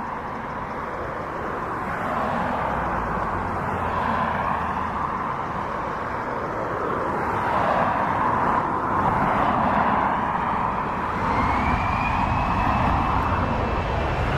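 Jet engines of a Boeing 737-800 airliner: a steady rushing noise that slowly grows louder, with a thin rising whine coming in near the end.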